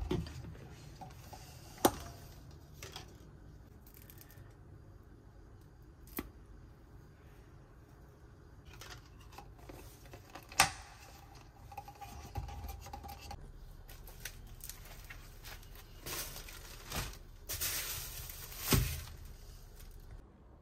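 Handling noises: scattered sharp clicks and knocks of objects being moved, the loudest at the very start and about ten and a half seconds in, with stretches of scraping or rustling in the last few seconds.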